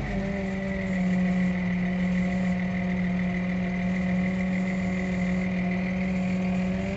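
Vehicle engine running at a steady speed, a constant drone heard from inside the cab.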